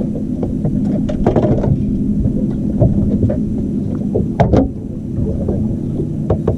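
Boat motor running steadily with a low hum, with a few short knocks and clatters on the boat about a second in, at about four and a half seconds, and near the end.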